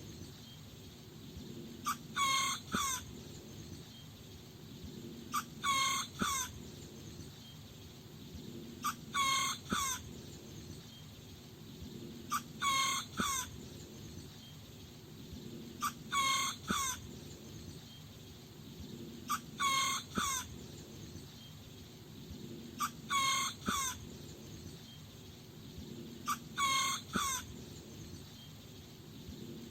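A small rooster crowing over and over: eight short crows, evenly spaced about every three and a half seconds, each in two parts.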